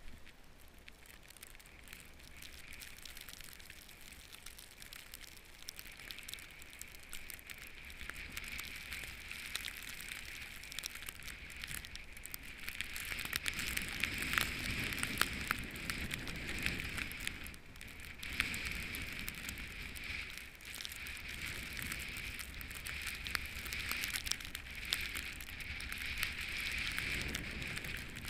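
Snowboard sliding and carving over fresh snow: a steady crackling hiss of the board scraping the snow, swelling and easing with the turns and louder from about halfway through.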